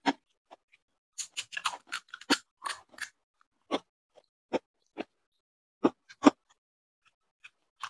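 Crisp fried fuchka (pani puri) shells crackling and crunching: a quick run of crunches about a second in, then single sharp cracks every half second to a second.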